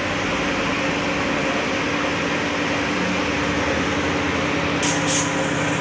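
Steady machine hum of paint-shop equipment with a constant low tone. Near the end come a few short hisses of a paint spray gun laying down a dry first coat of clear coat.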